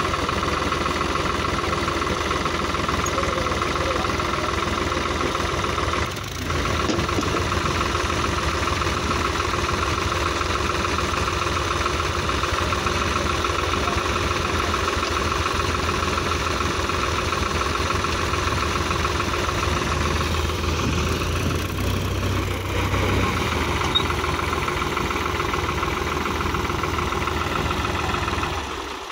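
New Holland TT55 tractor's diesel engine running steadily with an even knocking beat.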